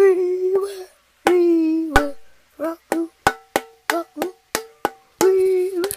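Hollow knocks on an empty Pringles can used as a hand drum, a quick run of sharp strikes in the middle. A child's voice sings held notes over it near the start and again near the end.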